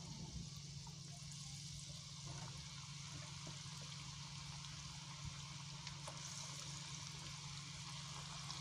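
Gram-flour pakoras deep-frying in hot oil in a karahi, a faint steady sizzle, over a low steady hum.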